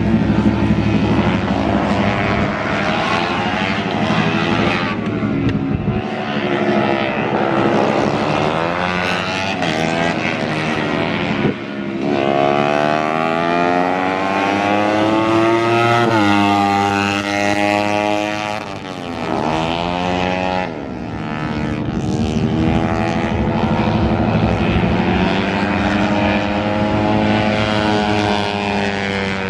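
Racing motorcycle engine run hard around a track, its pitch climbing under throttle and falling away again and again as the bike accelerates and backs off for corners. About halfway through there is one long climb that drops off sharply.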